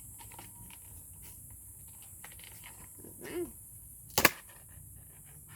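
Scissors cutting a doll free from its packaging: faint scattered clicks of handling, then one loud, sharp snip about four seconds in.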